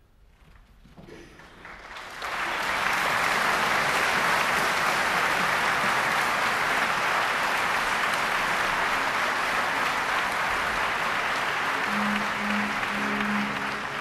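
Audience applause. It starts about a second in and rises to steady, dense clapping by about two seconds.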